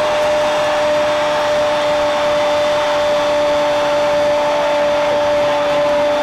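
A football commentator's long, held goal cry: one unbroken steady note over a hiss of background noise.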